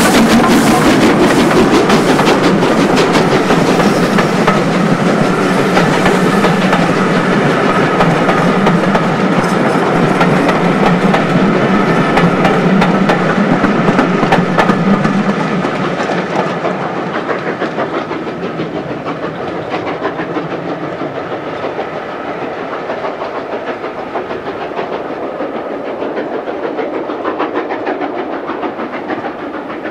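LNER B12 class 4-6-0 steam locomotive No. 8572 passing close by with sharp exhaust beats, then its train of coaches rolling past with wheels clattering over the rail joints. The sound fades from about halfway through as the train draws away.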